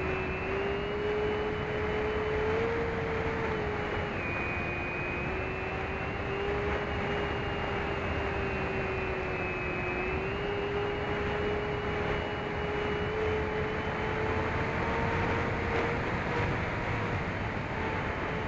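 Electric motor and propeller of a fixed-wing FPV plane heard on board in flight: a steady humming drone with wind rushing past, its pitch dipping about four seconds in and rising again about ten seconds in as the throttle changes.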